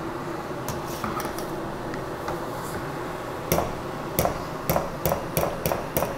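Wire spider strainer knocking against a stainless steel stockpot, metal on metal: a few faint clicks, then from about halfway a run of sharper taps, roughly three a second, as the strainer is shaken over the pot.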